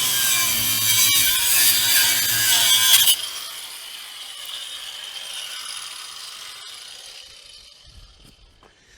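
A power tool cutting through the rusted steel caravan draw bar. It stops abruptly about three seconds in, then winds down and fades away slowly.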